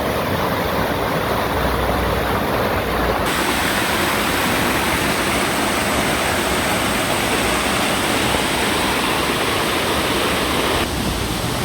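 Rainforest waterfall: a steady, very loud rush of falling water. The hiss turns suddenly brighter about three seconds in and softens again near the end.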